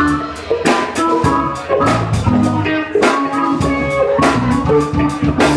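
Live power trio playing a groove: a drum kit keeps a steady beat under electric guitar and keyboard.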